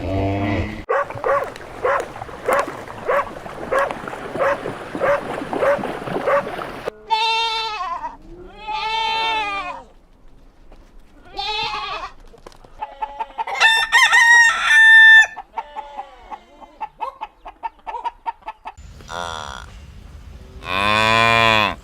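Chickens calling: a steady run of clucks at about two a second, then a series of separate longer calls that include a rooster crowing.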